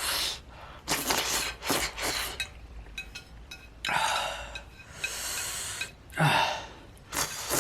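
A man breathing hard through his mouth in a string of sharp gasps and huffs, one with a short voiced groan a little past six seconds in, from the burn of extremely spicy ghost pepper noodles.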